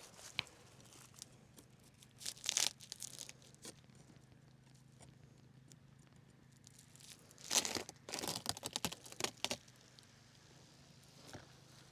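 Beehive being worked by hand: crackling, scraping and tearing strokes in two bursts, one about two seconds in and a longer one around eight seconds in.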